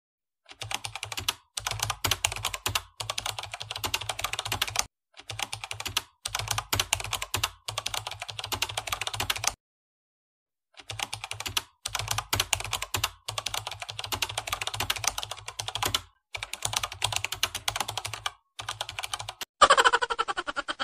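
Computer-keyboard typing sound effect: rapid clicking in runs of a second or two, with short breaks and a silence of about a second midway, laid under text typed out on screen. Near the end comes a brief louder sound falling in pitch.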